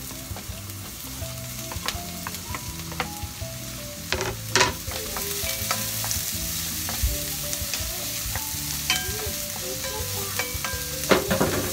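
Sliced sausages and onions sizzling in a nonstick wok, stirred with a wooden spatula that scrapes and knocks against the pan. Louder knocks come about four and a half seconds in and near the end.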